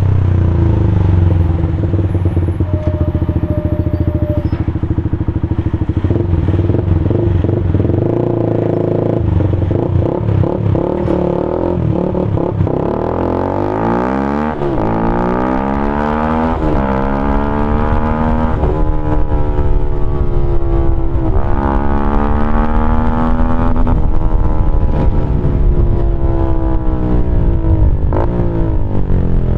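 Keeway RKF 125's single-cylinder four-stroke engine through a GPR Deeptone exhaust with the dB killer removed, running under way. Steady at first, then from about halfway the engine note rises and falls several times as it revs up and shifts.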